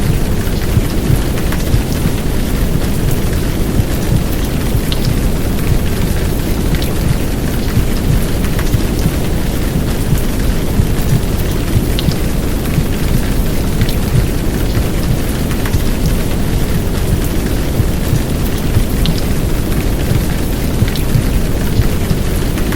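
Heavy downpour of rain laid over a steady, low rushing womb-sound noise, with scattered sharp drop ticks.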